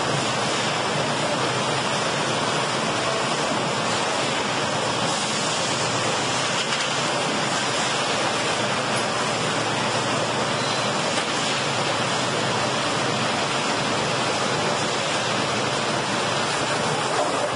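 Log-processing machinery running in a mill, a loud, steady, even noise with no distinct strokes or changes.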